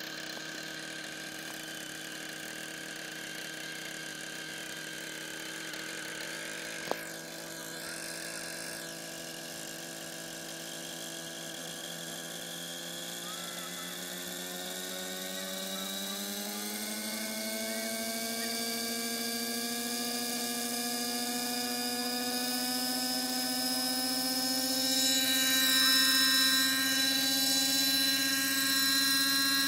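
Align T-REX 600 Nitro Super Pro RC helicopter's glow engine and rotor spooling up: a steady whine that rises in pitch about halfway through, then holds and grows louder near the end as the helicopter lifts into a low hover.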